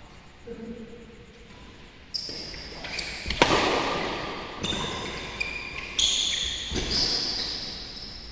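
Badminton play on an indoor court: a string of sharp racket-on-shuttlecock hits, the loudest about three and a half seconds in, with short high-pitched squeaks of shoes on the court floor.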